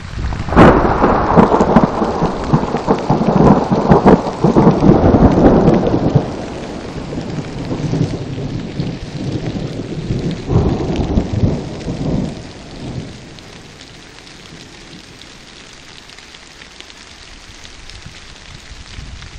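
A thunderclap about half a second in, rolling on loudly for several seconds, then a second, weaker rumble that dies away, leaving the steady hiss of light rain.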